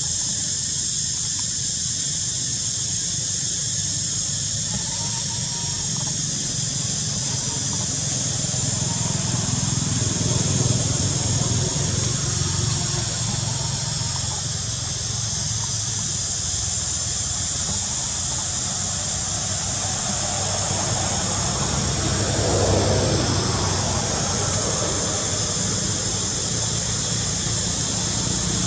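Forest ambience: a steady high-pitched insect drone over a constant low rumble.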